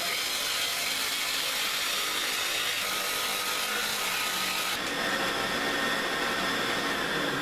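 Homemade dowel-rounding machine, its belt-driven cutter head on a WEG electric motor, shaving a hard, dry eucalyptus stick into a 30 mm dowel as it is pulled through, with a steady cutting and motor noise. About five seconds in the sound changes abruptly as the stick clears the cutter and the machine runs on without wood.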